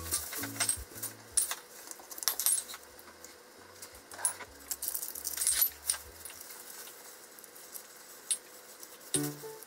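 Scattered light clicks and clinks of chopsticks and food being packed into a plastic bento box, over faint background music bass that fades out, with the music coming back in near the end.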